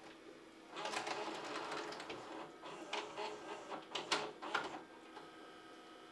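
Sony Hi-Fi Stereo VHS VCR taking in a videotape: its loading mechanism whirs and clicks as the cassette is drawn in and the tape threaded, with sharper clacks between about three and five seconds in. After that a faint steady hum.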